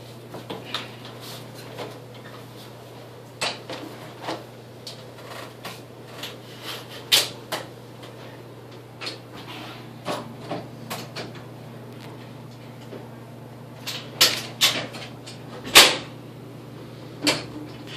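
A loaded stair chair being brought down a carpeted staircase: irregular knocks and clunks from the chair's tracks bumping over the stair edges and from people's steps, the loudest about two seconds before the end, over a steady low hum.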